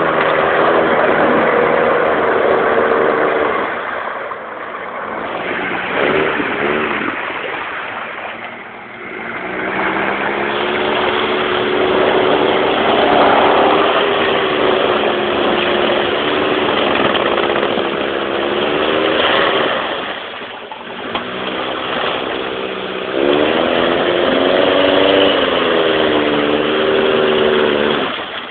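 Lifted Jeep's engine revving hard while its big mud tyres spin and smoke, the revs held high for long stretches, then easing off and climbing again several times.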